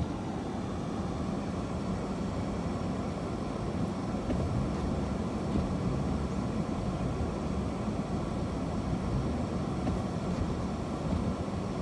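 Steady low rumble of a car heard from inside its cabin, engine and tyres on a snowy road, even throughout.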